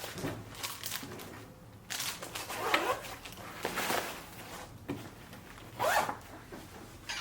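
Backpack fabric rustling and things being slid and shuffled into it, in several short swishing bursts.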